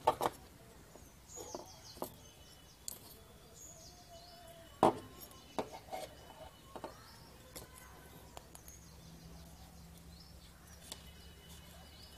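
Faint handling sounds as stripped copper wire is wound onto a small iron plate: scattered light clicks and rustles, with one sharper click about five seconds in. A few faint bird chirps near the start.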